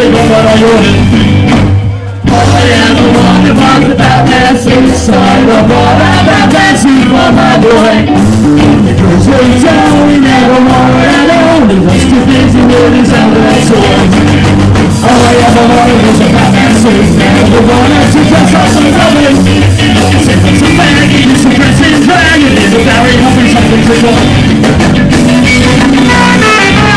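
Live ska band playing loudly, with electric guitars, drums, trombone and a man singing. The music drops out for a moment about two seconds in, then comes straight back in.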